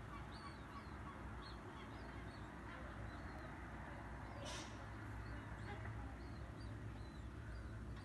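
Many short, high bird chirps over a steady low hum of city background, with a brief hiss about four and a half seconds in.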